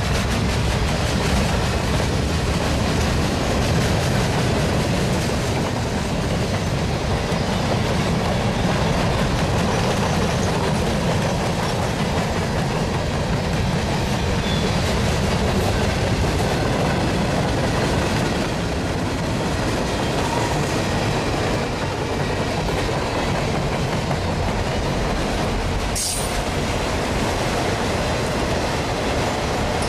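Mixed freight cars (boxcars, tank cars, covered hoppers and autoracks) rolling past at track speed: a steady, loud noise of steel wheels running on the rails. A single sharp knock from the passing cars is heard near the end.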